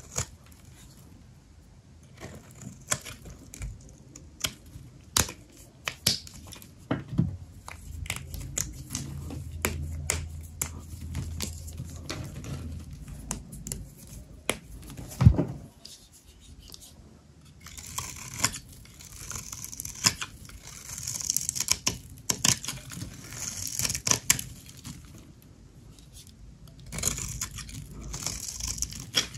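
Knife cutting and carving dry soap: a run of crisp cracks and snaps, with one loud snap about halfway and stretches of scraping later on.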